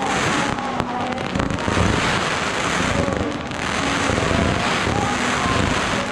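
Fireworks going off in a continuous barrage: many bursts and crackles run together into a steady, dense crackling roar, with no single bang standing out.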